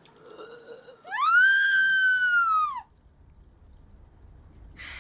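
A woman screams once, one long high scream of nearly two seconds that rises at the start and falls away as it ends.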